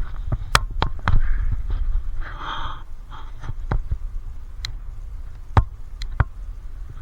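Scattered sharp clicks and knocks of hand tools and parts on metal during car suspension work, about seven in all, the loudest a little over halfway through, over a low wind rumble on the microphone.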